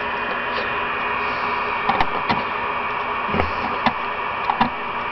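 Several sharp clicks and knocks of leads being connected while a power supply is hooked up, over a steady hiss.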